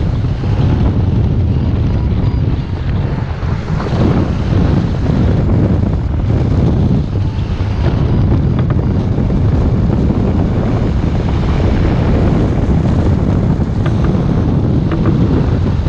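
Wind buffeting the microphone of a camera mounted on a hang glider in flight: a loud, steady low rumble of rushing air.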